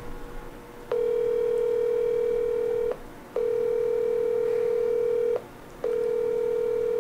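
Outgoing-call ringback tone played through a smartphone's speaker: a steady beep that sounds three times, each about two seconds long with short gaps, starting about a second in. It signals that the call is ringing at the other end and has not been answered yet.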